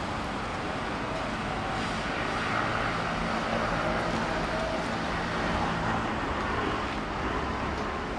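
Steady outdoor background rumble, like distant road traffic, with a faint low hum.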